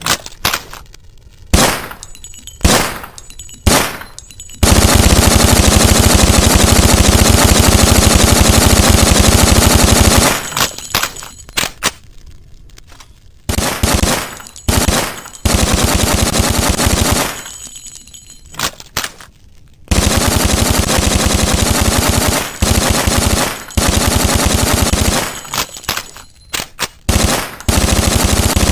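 Sten submachine gun firing: a few single shots, then long bursts of fully automatic fire lasting several seconds each, with short bursts and single shots in between.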